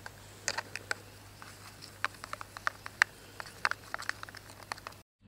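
White plastic spoon stirring freeze-dried milk and water in a green plastic camp bowl: quick, irregular clicks and taps of the spoon against the bowl. It cuts off suddenly near the end.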